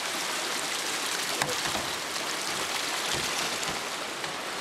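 Steady rushing of flowing river water, with one short sharp knock about a second and a half in.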